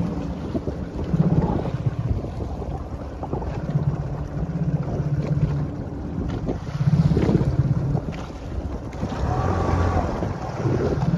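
Wind buffeting the microphone aboard a fishing boat at sea, over a steady low rumble from the boat's engine and water washing against the hull.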